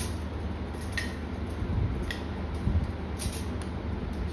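Light metal clicks of stainless-steel wire rack parts being fitted into the frame, a few of them about a second apart, over a steady low rumble.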